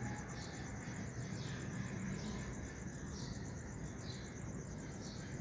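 Insects, crickets by the sound, chirping steadily in a fast, even high trill, with a few faint short bird chirps over a low, even background hum.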